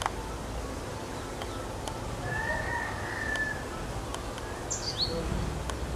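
Faint calls of small birds over a low outdoor rumble: a thin drawn-out whistle a couple of seconds in and a quick high falling chirp about five seconds in, with a few light clicks.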